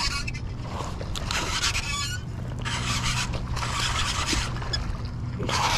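Fishing reel cranked in several bursts of scraping whir while a hooked bass splashes at the surface about four seconds in, over a steady low rumble.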